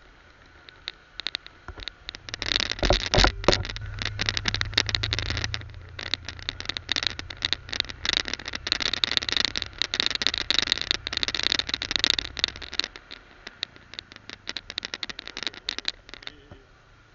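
Ride on a Honda motor scooter, heard through a small handheld camera's microphone as dense crackling wind and handling noise over a low rumble. The rumble starts about two seconds in and fades about thirteen seconds in; the crackling stops shortly before the end.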